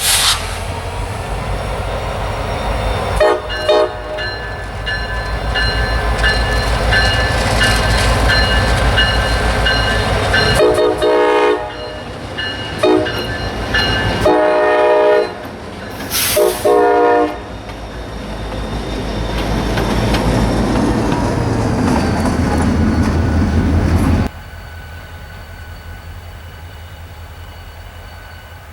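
Diesel freight locomotive running close by, its engine rumbling, while its horn sounds: one long sounding, then several short blasts. The rumble drops off abruptly near the end.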